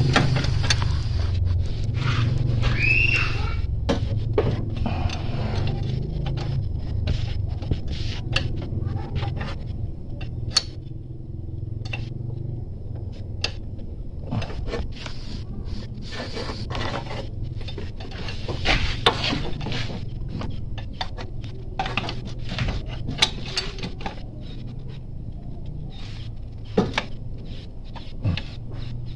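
A spanner clicking, tapping and scraping on metal as the power steering pump's belt-tension adjuster is turned to tighten the drive belt, in irregular runs of short clicks. A brief squeak about 3 seconds in, all over a steady low hum.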